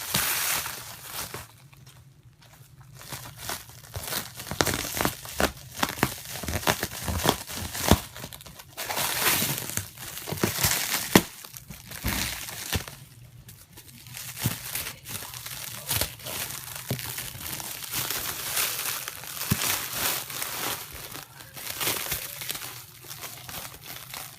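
Packaging being unwrapped by hand around a new BMX wheel: wrapping crinkling and tearing, with scattered sharp clicks and knocks.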